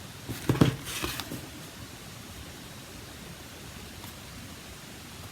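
A few soft taps and rustles of cardstock being positioned and pressed down onto the desk in the first second or so, then only a faint steady hiss.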